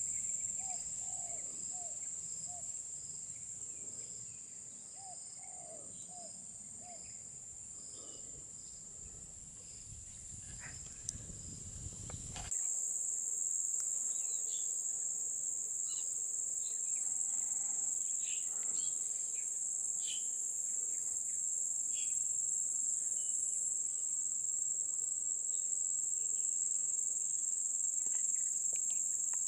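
Steady high-pitched insect chorus, with a few short bird calls scattered through it; the background changes abruptly about twelve seconds in.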